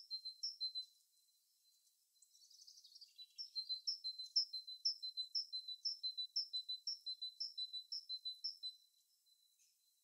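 A small songbird singing high, thin notes: a short burst at the start, then after a pause a brief trill, followed by a long run of repeated two-note phrases at a little over two a second that stops about nine seconds in.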